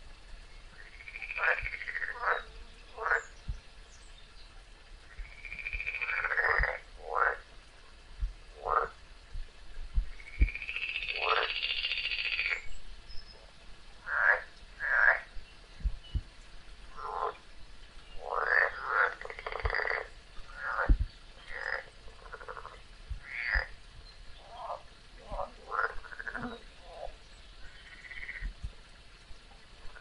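Frogs croaking in a run of short, irregular calls, one every second or so, some longer and some overlapping.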